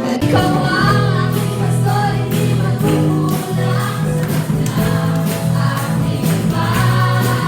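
Music with a group of voices singing over sustained bass notes and a regular percussive beat.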